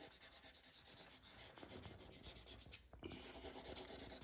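A Sharpie felt-tip marker scribbling on paper, colouring in with rapid back-and-forth strokes. It is faint, pauses briefly about three seconds in, then carries on a little louder.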